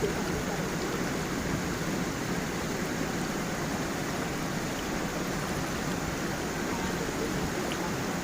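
Small forest waterfall and stream flowing steadily, an even rush of water over stones.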